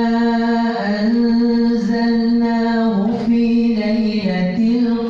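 A man chanting Quran recitation in a melodic tarannum style, one voice holding long drawn-out notes with small turns and dips in pitch between them.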